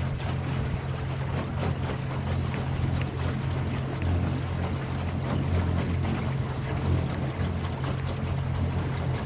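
Water splashing and lapping along the hull of a small electric boat under way, in many small irregular splashes over a steady low rumble.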